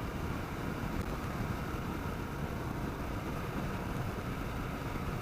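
Kawasaki KLR 650 single-cylinder motorcycle cruising at a steady speed, its engine drone mixed with steady wind rush over the microphone.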